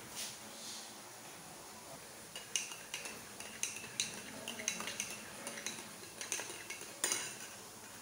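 Metal teaspoon stirring coffee in a ceramic mug, clinking against the inside of the mug in quick taps, about three a second, starting a couple of seconds in. A louder clink comes near the end.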